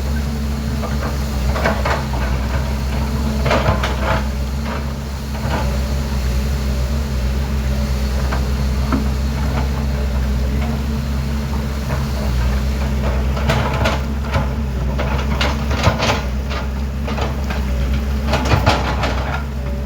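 Excavator's diesel engine running steadily, with clusters of knocks and clatter from the machine's work several times.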